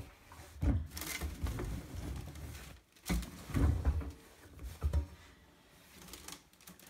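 Towels being pushed by hand into the drum of a front-loading washing machine: irregular rustling of fabric and dull bumps, quieter near the end.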